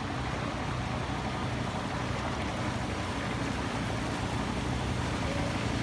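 Motorcycle engines running steadily as the bikes ride through floodwater, over a wash of water sloshing around wading legs and pushed bicycles.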